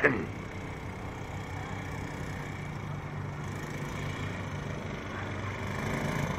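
Mini bike's small engine running steadily as the bike crosses the grass, slowly getting louder as it comes closer.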